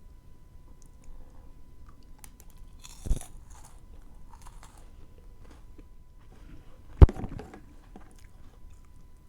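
Two crisp bites into a chocolate treat, about three seconds in and a louder one near seven seconds, each followed by a short burst of crunching and then quieter chewing.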